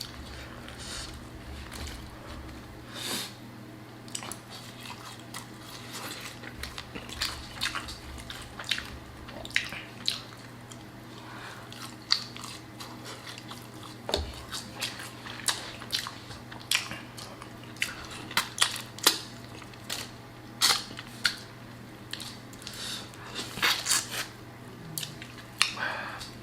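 Close-up eating of a seafood boil of shrimp, crawfish and sausage: wet chewing and smacking mixed with many short, sharp clicks and crackles at irregular intervals, from shells being peeled and food being handled.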